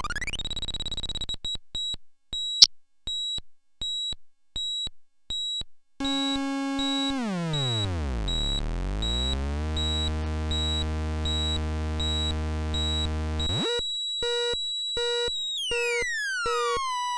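Two-oscillator drone/noise synthesizer with an LFO: a tone sweeps up to a high pitch and breaks into high beeps pulsing about twice a second, with one sharp click among them. About six seconds in, a buzzy drone rich in overtones slides down to a deep low buzz and holds there. Near the end it jumps back up into pulsing beeps, and a long falling glide follows.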